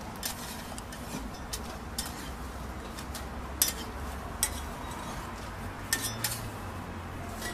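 Metal spatula scraping, tapping and chopping against a flat round crepe griddle as a jianbing is folded and cut: a series of sharp, irregular clicks and scrapes over a low steady hum.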